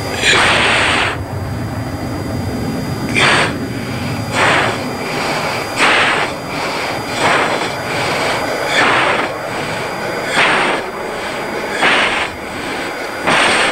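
Steady F-16 jet engine noise heard in the cockpit. About every one and a half seconds comes a short, loud hissing rush of breath into the pilot's oxygen-mask microphone: the forceful breathing of a pilot straining against G during a hard turn.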